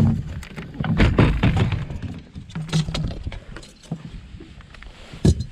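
Irregular knocks, clicks and thumps on a fishing boat as a freshly landed northern pike is handled for measuring, with a heavy thump about a second in and another sharp knock near the end.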